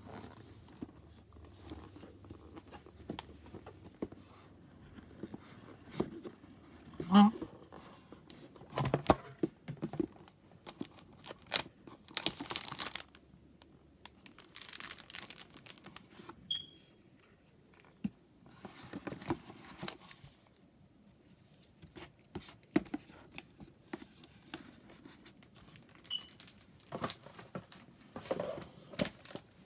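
Hands handling packaging: paper and plastic rustling and crinkling in short irregular bursts, with scattered light clicks and knocks.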